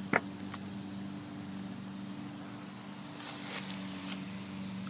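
Lawn sprinkler spraying water with a steady hiss, over a steady low hum; one sharp click just after the start.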